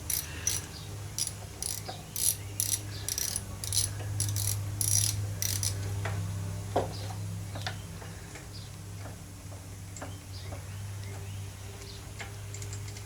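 A hand tool working small screws out of a mower engine, clicking about three times a second for the first five or six seconds, then scattered light metal clicks and taps, over a steady low hum.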